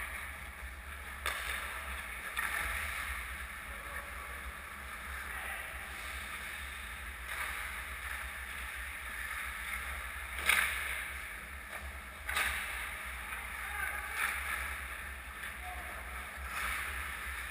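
Ice hockey play on an indoor rink: a steady low rumble under a wash of skates scraping the ice, with several sharp knocks of puck or stick, the loudest about ten seconds in and another about two seconds later.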